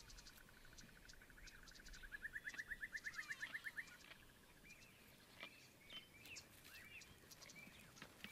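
Faint birdsong of the bush: a fast pulsed trill that grows louder and rises from about two seconds in, stopping just before four seconds. Scattered short chirps and clicks follow.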